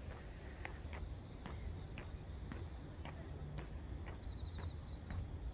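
Insects trilling steadily in one high, unbroken tone, with footsteps on a path about twice a second over a low rumble.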